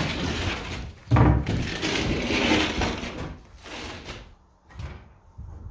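Plywood roof sheathing being worked: a sharp wooden knock about a second in, then a stretch of scraping and rattling that dies away after about four seconds.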